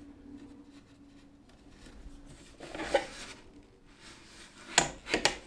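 Hands working a wooden rigid-heddle loom: a soft rustle of yarn about three seconds in, then three sharp wooden knocks near the end as the heddle is handled.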